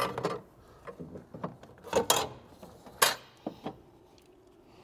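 A few short metal clinks and knocks as a car's strut-tower cross brace is lowered and set onto the strut towers, the loudest about two and three seconds in.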